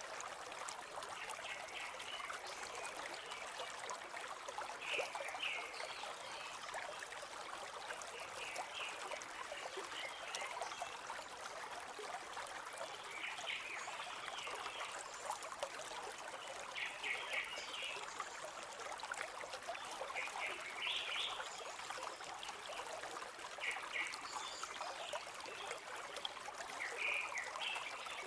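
Stream flowing steadily, with short bird chirps recurring every few seconds.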